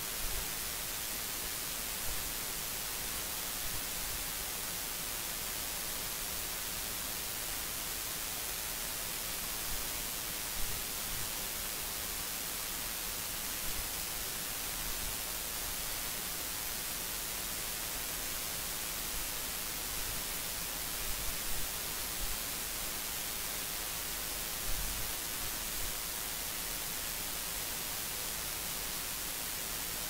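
Steady hiss of recording noise, a constant static with no tone in it. A few faint, brief low bumps rise above it.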